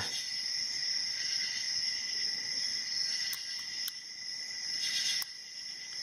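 Steady high-pitched insect chirring, with a couple of faint ticks, about halfway through and near the end, from a hook pick and tension wrench working the pins of a brass padlock.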